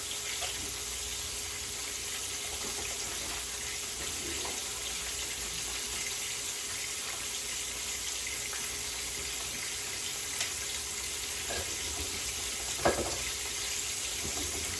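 Steady hiss, with a few light clicks and one short, louder knock near the end.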